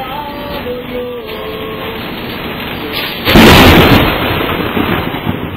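Close thunderclap from a nearby lightning strike: a sudden, very loud crack about three seconds in that rumbles away over the next couple of seconds, over a steady background hiss.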